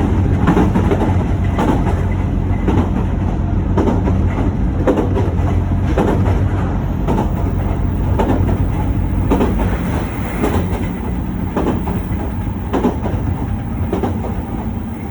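Train running along the track: a steady low rumble with wheel clacks at the rail joints about once a second, growing a little quieter near the end.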